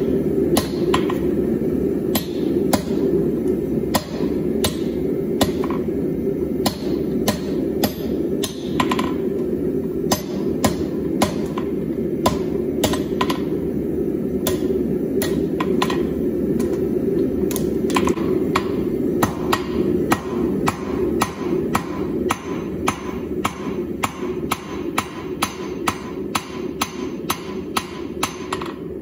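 Blacksmith's hand hammer striking red-hot steel bar on an anvil in a steady run of blows, a little under two a second. A steady low rushing noise runs underneath.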